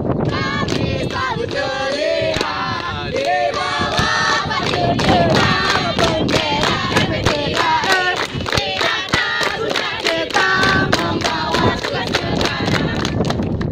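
A mixed group of young women and men sings a cheer song in unison, with rhythmic hand claps that grow more frequent from about the middle on.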